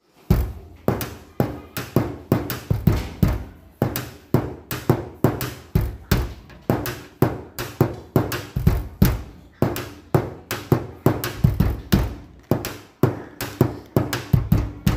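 Intro music made of struck, percussive notes, two or three a second, each dying away quickly; it stops near the end.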